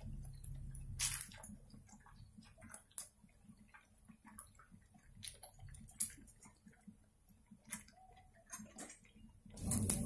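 Malpuas frying in hot oil in a pan, the oil crackling with scattered sharp pops, and a few clicks as a slotted spoon and wooden spatula lift them out. It grows louder just before the end.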